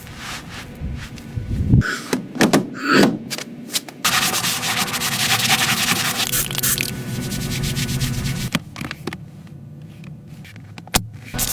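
Hand rubbing and sanding-like scrubbing on a surface, in several short clips. A steady scrubbing stretch of about four seconds sits in the middle, and a single sharp click comes near the end.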